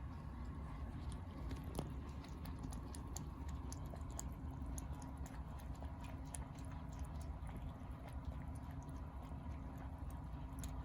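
Pets making quick, irregular light clicks and taps over a steady low hum.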